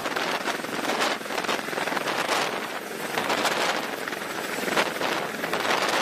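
CH-53E Super Stallion heavy-lift helicopter hovering low overhead with a Humvee on an external sling load: a dense rushing roar of rotor and downwash that rises and falls, with the downwash buffeting the microphone.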